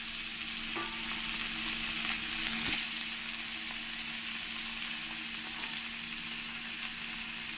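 Pieces of tilapia frying in hot oil in a kadai: a steady sizzle with a couple of small pops, over a low steady hum.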